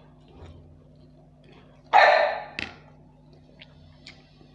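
A dog barks once, loudly and suddenly, about two seconds in, followed by a short second sound. Faint clicks come afterwards.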